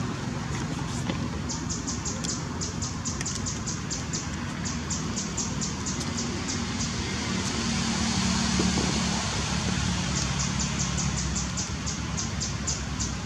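Outdoor ambience: a steady low rumble that swells and fades around eight to nine seconds in, with rapid high-pitched pulsing chirps, about five a second, that stop for a few seconds in the middle and return near the end.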